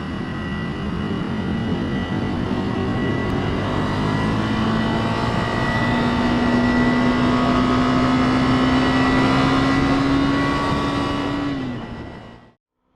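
Motorcycle engine pulling under steady throttle, its pitch slowly climbing for several seconds, then dropping as the throttle closes before the sound fades and cuts off near the end.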